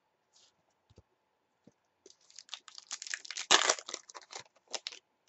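A trading-card pack's wrapper being torn open and crinkled by hand: a few faint taps, then from about two seconds in a dense crackling rustle that peaks in the middle and stops shortly before the end.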